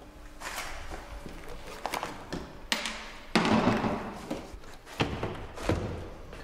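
Knocks, thuds and rustling as an old padded vinyl car door panel is pried off the door and handled, with a louder scraping clatter about three and a half seconds in and sharp knocks near the end.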